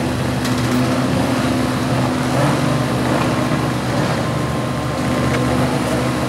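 Several rally cars' engines running together while the cars sit stationary on a starting grid, a steady blend of engine tones with no big revs.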